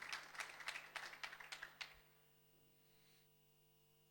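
Faint, scattered audience applause dying away about two seconds in, then near silence.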